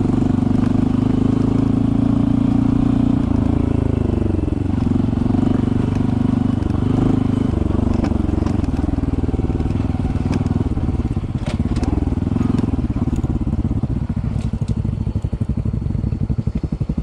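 Honda CT125 Hunter Cub's single-cylinder engine running at low trail speed. Its pitch dips and wavers about four seconds in, and it eases off to a lower, quieter note in the second half. Scattered sharp clicks and knocks come near the end.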